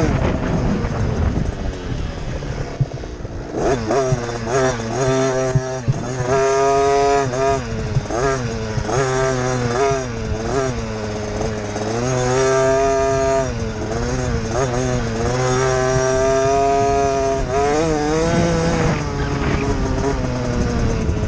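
Motocross bike engine heard on board, revving up and dropping back again and again as the rider accelerates, shifts and backs off around the track. It briefly goes quieter about three seconds in, then picks up again.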